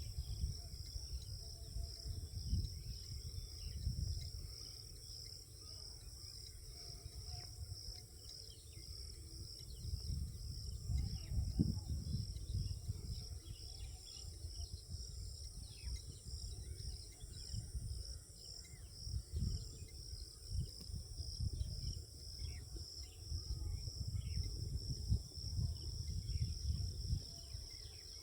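Insect chorus, a steady high pulsing trill, over an uneven low rumble that swells and fades several times, with faint scattered chirps.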